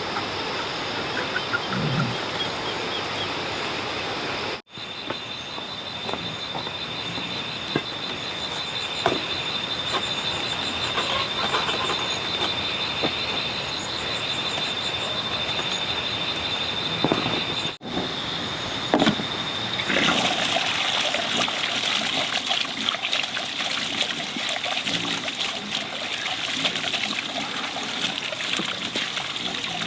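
Water running and trickling, with a high, steady, pulsing trill above it. The water gets fuller and louder about two-thirds of the way through.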